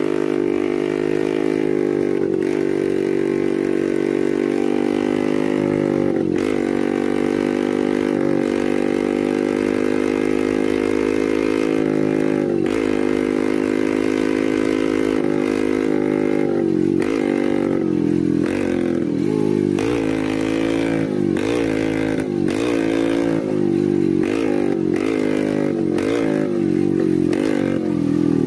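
Two-stroke Vespa scooter engine of a heavily modified, tyre-laden 'extreme' Vespa running on the spot, its pitch mostly steady with an occasional dip. In the second half the revs rise and fall again and again, somewhat more than once a second.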